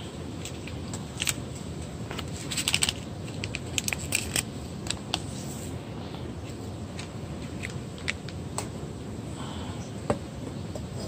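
Scattered sharp clicks and light metallic taps of camp kitchenware being handled as ground coffee is tapped into a stainless steel sierra cup, with a cluster of quick taps about two to four seconds in. A steady low rushing noise runs underneath.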